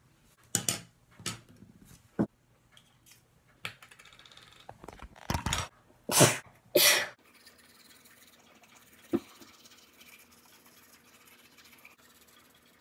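Several short loud rustles and a click in the first seven seconds, the loudest two about six and seven seconds in, then a faint steady scrubbing of a toothbrush on teeth.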